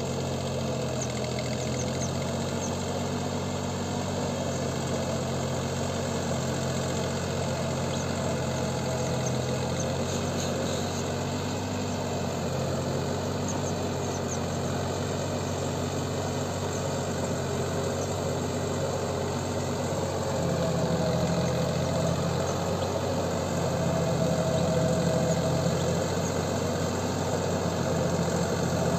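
Deutz-Fahr Agrolux 50 tractor's diesel engine running steadily while it works a wet paddy field with a rear implement, getting a little louder about 20 seconds in.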